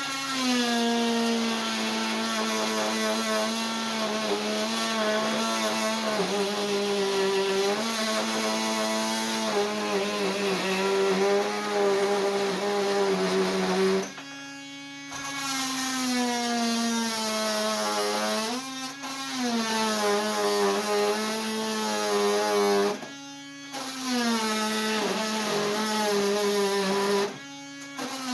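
Oscillating multi-tool with a carbide blade cutting through a steel lag bolt: a steady buzzing whine whose pitch drops and settles as the blade bites. It stops briefly about halfway through and twice more near the end, restarting each time.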